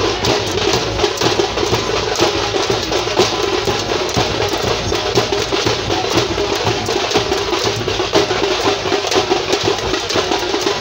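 Dhol-tasha drumming: several large double-headed dhol drums beaten with sticks in a fast, dense, unbroken rhythm.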